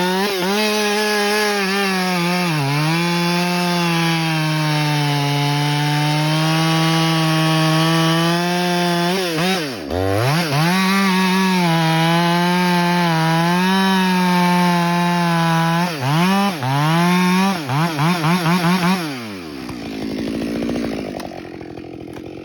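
Ported Husqvarna 572XP two-stroke chainsaw running at full throttle while cutting through oak, its pitch sagging under load and dipping hard about ten seconds in as the chain bogs in the cut. Near the end the throttle is blipped rapidly several times, then the saw drops to idle.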